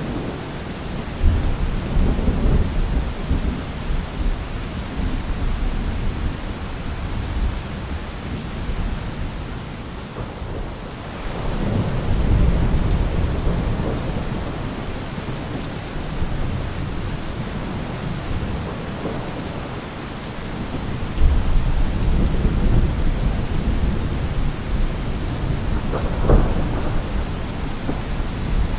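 Thunderstorm: steady heavy rain, with rolls of deep thunder rumbling in three times and a sharper thunder crack near the end.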